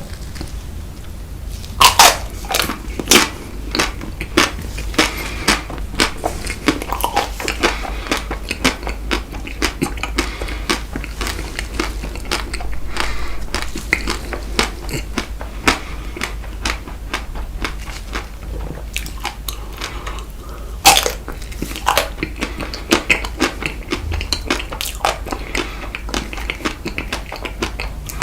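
Close-miked eating of frozen chocolate ice cream bites: crisp bites and crunching with wet chewing in between, the sharpest crunches about two seconds in and again about twenty-one seconds in.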